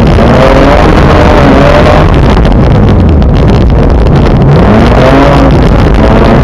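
Car engine and road noise heard from inside the cabin, loud and overloaded, with the engine note rising and falling as it speeds up and eases off on snowy gravel road.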